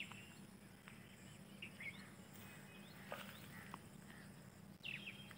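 Faint bird chirps: short, high, falling calls now and then, with a busier run of chirping near the end.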